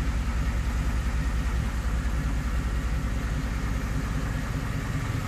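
Chevrolet Silverado pickup engine idling steadily, a deep, even exhaust rumble.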